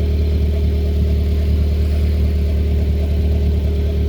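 Subaru WRX turbocharged 2.0 L flat-four idling steadily through a Tomei titanium cat-back exhaust and catted resonated J-pipe, with a deep, even exhaust hum.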